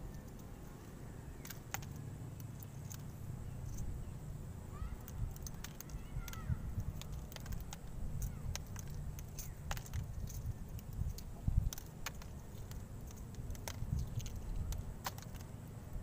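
Wind rumbling on the microphone, with scattered small clicks and crackles from a small item of food being peeled by hand.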